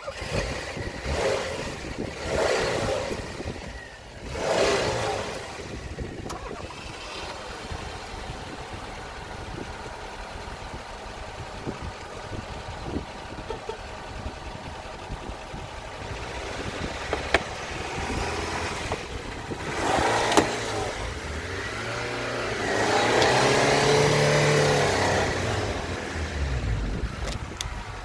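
Tofaş Şahin and Doğan sedans' petrol engines running and revving as the cars push bumper to bumper, with a few short revs in the first five seconds and a longer, louder rev about twenty-two seconds in that holds for a few seconds.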